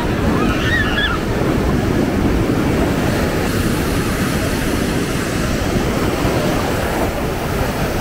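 Ocean surf breaking and washing up a sandy beach in a steady, even rush, with wind buffeting the microphone.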